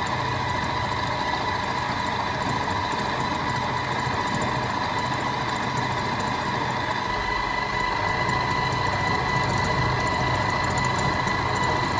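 Milling machine spindle running with a steady high whine while an 8 mm ball-nose end mill cuts a groove around a small round part as the rotary table is turned by hand. The cut is going easily.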